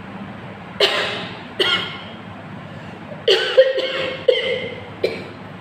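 A woman coughing: two single coughs, then a quick run of about five. Her throat is irritated by dried chilli powder she breathed in.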